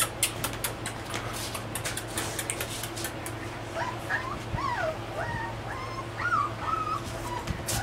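Rottweiler puppy whimpering: a run of short, high whines that rise and fall, starting about halfway through and lasting about three seconds. Light clicks and taps come before it.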